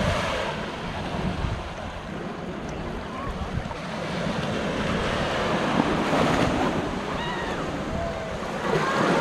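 Sea waves washing onto a beach, the surf swelling about halfway through, with wind rumbling on the microphone.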